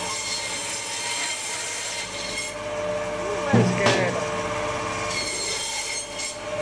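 Electric meat band saw running with a steady hum and a rasping sawing sound as a cut of meat and bone is pushed through the blade. A brief louder burst comes about three and a half seconds in.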